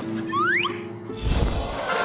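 Cartoon music cue for a magic vanishing trick: a held note under a quick rising whistle-like glide, then a short burst of noise about a second in as the covered character disappears, with the music carrying on.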